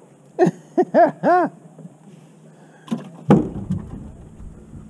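Four short hooting calls, each rising and then falling in pitch, the last one longest, followed about three seconds in by a single heavy thump.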